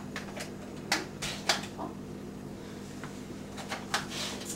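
Scattered light clicks and knocks of a powder scoop and a blender jar being handled on a kitchen counter, over a faint steady hum.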